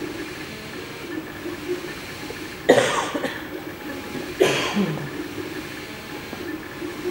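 MakerBot 3D printer running mid-print, its stepper motors and fan giving a steady mechanical whirr. A person coughs twice over it, about three and four and a half seconds in.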